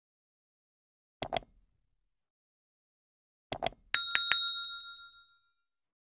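Subscribe-button animation sound effect: a quick double mouse click about a second in, another double click at about three and a half seconds, then a notification bell dinged a few times in quick succession, ringing out and fading.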